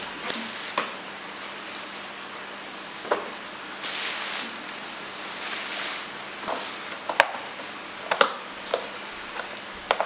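Plastic food containers and lids being handled while a fridge is tidied: scattered sharp clicks and knocks, with a few short bursts of rustling.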